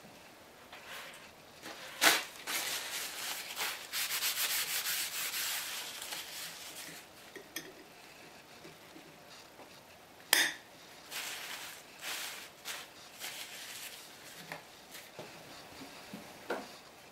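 Rubbing and scraping on a small wooden piece worked by hand, in uneven strokes, densest a few seconds in. Two sharp knocks, about two seconds in and about ten seconds in, are the loudest sounds.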